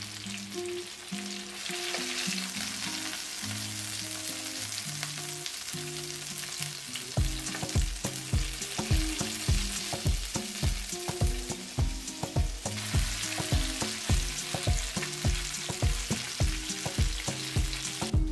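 Fat sizzling in a frying pan where chicken drumsticks have just been browned. Background music plays along, its beat coming in about seven seconds in.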